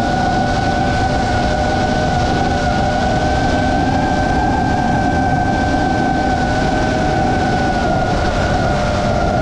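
FPV drone's electric motors whining steadily in flight, the pitch drifting slightly up and down, over a steady rush of air noise.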